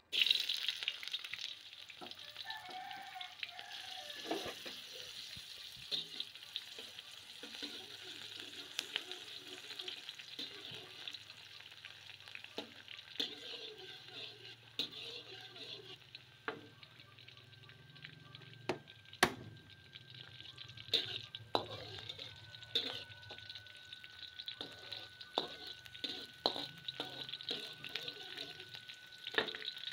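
Chopped onion, garlic and chillies hitting hot oil in a wok, sizzling loudly at once, then frying steadily while a metal slotted spatula stirs them, scraping and tapping against the wok.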